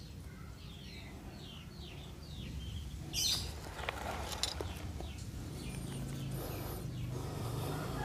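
A small bird chirping nearby, a run of short falling notes repeated several times in the first few seconds. About three seconds in there is a brief rustle, and another softer one later.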